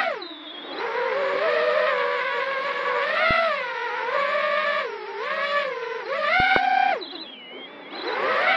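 Micro quadcopter's brushless motors and propellers whining, the pitch rising and falling with the throttle. The pitch drops low just after the start and again about seven seconds in, then climbs back.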